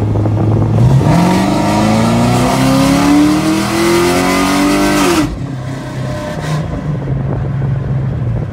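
Camaro SS's 6.2-litre V8, fitted with a ported intake manifold, heard from inside the cabin accelerating hard: the engine note climbs steadily for about four seconds, drops off suddenly about five seconds in, then runs on at a lower steady pitch.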